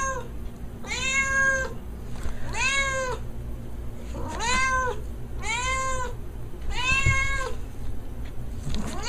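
Calico cat meowing insistently, about six drawn-out meows a little over a second apart, each rising and then falling in pitch.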